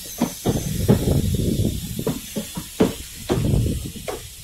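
Wind rushing in through an open window of a moving train and buffeting the microphone in irregular low gusts, over a steady hiss of the train running.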